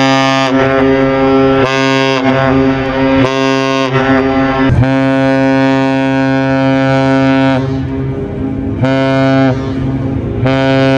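Synthesized cargo-ship horn sounding a run of deep, steady-pitched blasts. A few short ones come first, then one held about three seconds in the middle, then two shorter blasts near the end. Each blast drops slightly in pitch as it cuts off.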